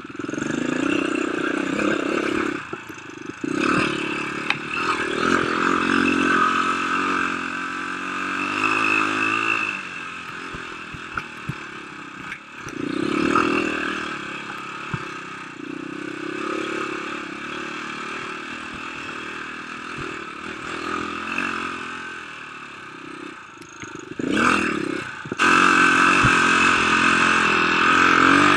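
Dirt bike engine revving up and down as the throttle is worked over rough ground, with scattered knocks and rattles from the bike. It gets louder near the end.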